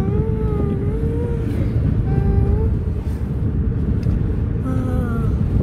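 Car on the move heard from inside the cabin: a steady, heavy rumble of road and wind noise, the wind coming in from outside. A voice draws out a few long, sliding notes over it, near the start, about two seconds in and near the end.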